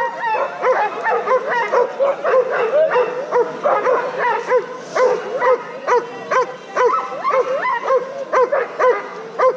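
Harnessed skijoring dogs barking and yipping in rapid succession, about two to three high yelps a second.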